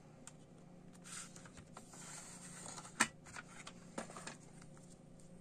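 A paper CD booklet being slid out of an open plastic jewel case: soft paper rustling and scattered plastic clicks, the sharpest click about three seconds in and a few more about a second later.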